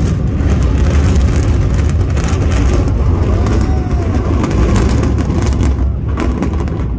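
Controlled implosion of the Supertech twin towers: the loud, continuous deep rumble of the concrete towers collapsing, with sharp crackles all through, easing slightly near the end.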